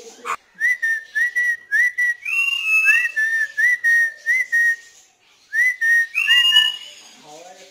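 African grey parrot whistling: a string of short clear notes, each swooping up and then holding, with a longer, higher whistle among them. The whistling breaks off for a moment about five seconds in, then resumes. A single click comes just at the start.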